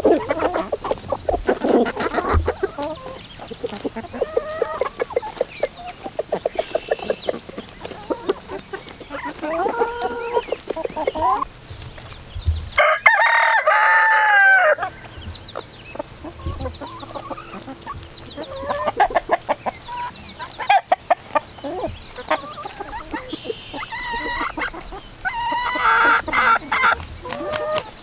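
A flock of chickens clucking and calling continually as they feed. A rooster crows once, loudly, about halfway through.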